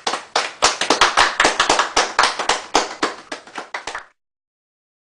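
Audience applauding, a quick run of separate handclaps that cuts off suddenly about four seconds in.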